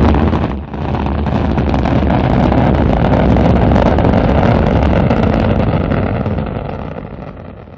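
Rocket thrust sound effect for a spacecraft stage separation: a sudden blast, a brief dip, then a steady low rushing engine noise that fades over the last couple of seconds and stops.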